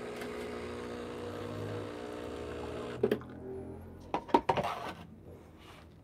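Breville Barista Express espresso machine's vibratory pump humming steadily as hot water runs through the portafilter into a glass to heat it. The pump stops with a click about three seconds in, followed by a few knocks and clinks.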